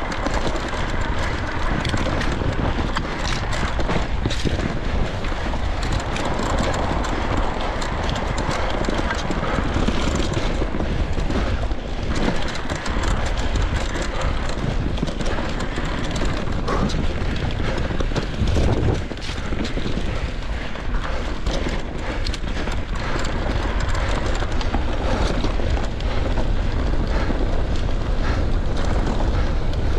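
Electric mountain bike ridden fast over a trail: wind buffeting the microphone and tyres running over roots and stones, with many small knocks and rattles from the bike.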